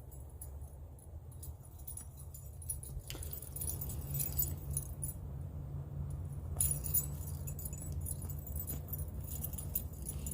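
Light metallic jingling and clinking, like keys or small metal pieces shaken together, coming and going over a steady low hum.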